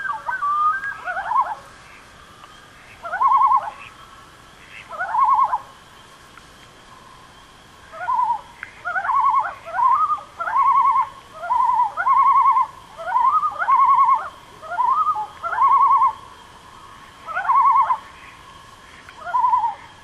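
Common loons giving short tremolo calls, quavering laugh-like notes repeated every second or two, crowding together and overlapping in the middle, then thinning out near the end. Spring peepers form a faint steady high chorus behind them.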